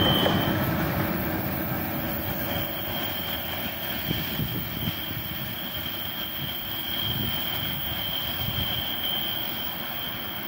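Heavy electric freight train with a 4ES5K 'Ermak' pusher locomotive at its rear receding into the distance: the rumble and wheel noise fade steadily, with a thin, steady high whine carrying on above them.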